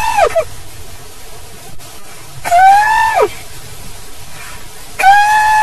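Three short high-pitched vocal cries, about two and a half seconds apart, each rising a little, holding, then dropping away sharply.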